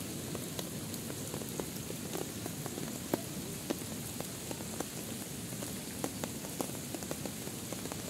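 Steady rushing water of a river in flood, with scattered sharp ticks throughout.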